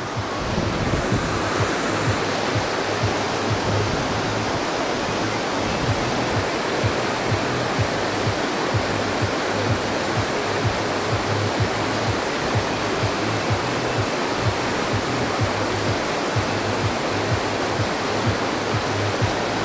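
Water rushing steadily through a dam, a constant even noise of falling and flowing water.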